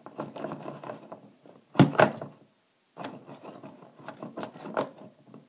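Irregular knocks, taps and clatter from handling a Domo bobblehead toy on a desk, its head pushed down so it bobbles; one louder knock about two seconds in.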